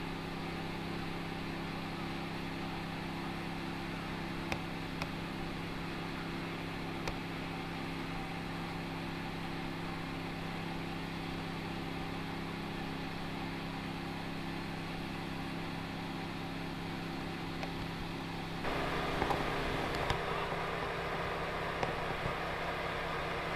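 An engine running steadily at a constant pitch, with a few light knocks. Near the end the sound changes suddenly and gets a little louder.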